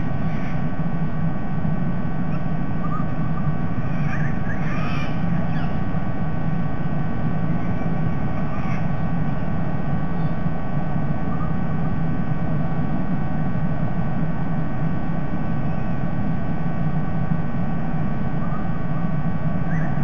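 Steady low rumble of background noise with a faint steady hum, picked up by a nest-camera microphone. A few short, faint bird calls come through it now and then.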